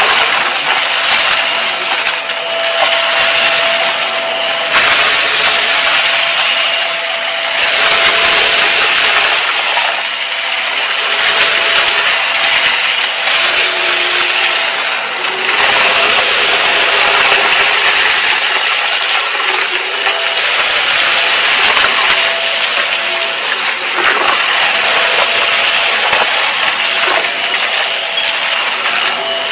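Hart cordless stick vacuum running with a steady motor whine, its floor head sucking up a thick layer of small cardboard bits off a carpet with a constant crunchy rattle. The sound swells and eases with each pass.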